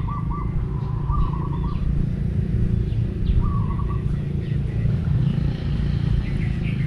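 A motorcycle engine idling with a steady low hum. Birds chirp in short trills over it several times.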